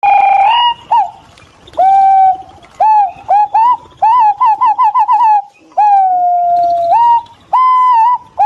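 Green pigeon calls: a series of clear, melodious whistles that glide up and down, with a quick run of about six short rising notes in the middle and a long, slowly falling whistle after it.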